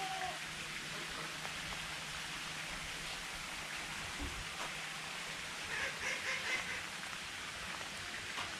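Steady hiss like light rain, with a few short bird calls about six seconds in.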